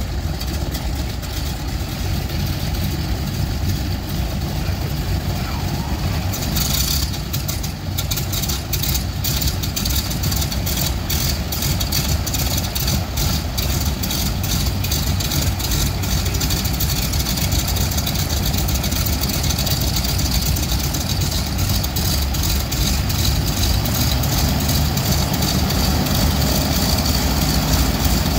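Ford Tri-motor's radial engines running on the ground during start-up. About seven seconds in, a fast run of sharp popping firing strokes sets in as another engine catches. The engine sound grows louder toward the end.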